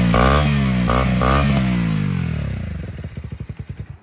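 KTM RC 125 single-cylinder four-stroke engine running very loud with the silencer removed, the exhaust open after the catalytic converter: it is blipped up and down a couple of times, then the revs fall away and it shuts off, the firing pulses slowing to a stop near the end.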